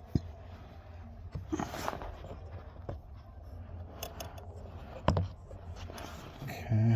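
Scattered clicks, knocks and a short scrape from hand tools working on a battery cable.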